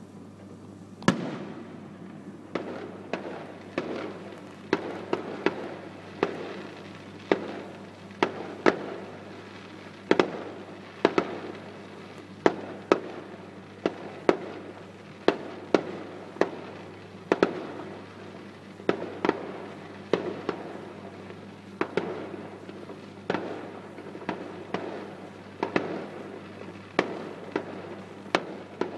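Aerial firework shells bursting one after another, a sharp bang about every second, each followed by a short echoing tail.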